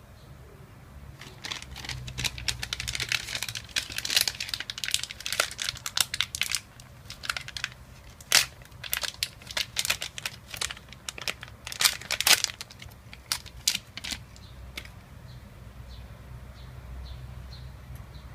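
Plastic parts bag being handled and crinkled: a dense run of crackling for about five seconds, then separate sharp crackles that stop a few seconds before the end.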